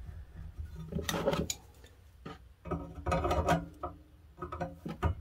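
Pliers scraping and rubbing on a rusted nut on a cast-iron andiron leg held in a bench vise, in two short spells about a second in and about three seconds in, with a few clicks of metal on metal.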